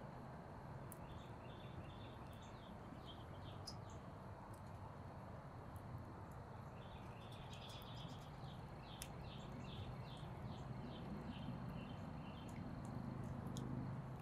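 Small wood fire crackling with scattered sharp pops, while a bird chirps in quick repeated runs in the background.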